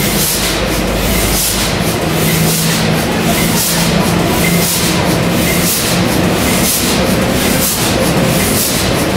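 Huge multi-cylinder diesel engine running at slow speed, a steady rhythmic pulse about twice a second over a constant hum.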